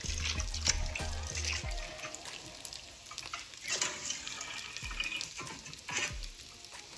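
Water running and splashing, with faint music. A low hum stops just under two seconds in.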